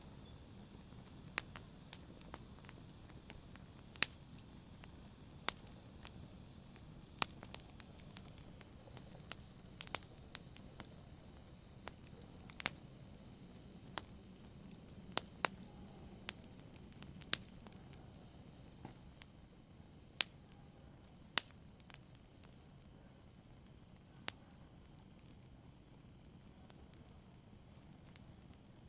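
Burning logs crackling in a fireplace: sharp, irregular pops and snaps over a soft low hiss of the fire. The pops thin out in the last few seconds.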